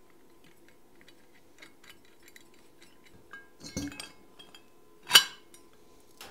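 Steel rods and pulley flanges of a home-made roller assembly clinking lightly as they are handled on a steel bench, then a few knocks about four seconds in and one loud sharp metal clank about a second later.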